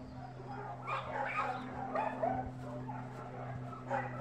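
Dogs barking and yipping, several short barks in clusters about a second apart, over a steady low hum.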